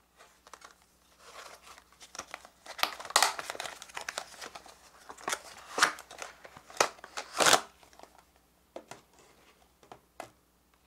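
Clear plastic packaging and a paperboard box being handled and opened: crinkling and rustling with sharp crackles, loudest through the middle and thinning out over the last few seconds.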